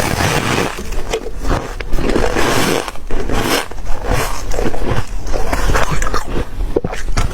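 Close-miked bites into ice, a run of loud crunching and scraping bursts one after another.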